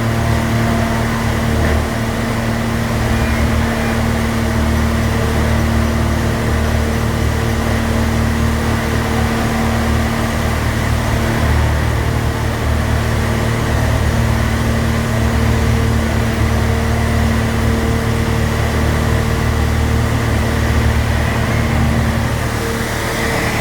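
Electric motor running with a loud, steady hum.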